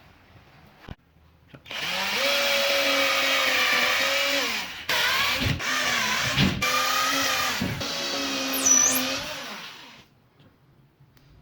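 A handheld electric power drill running for about eight seconds with a steady whine. The pitch sags and briefly cuts out several times as the bit loads up in the wood. Two light knocks come before it starts, and there is a short high squeal near the end.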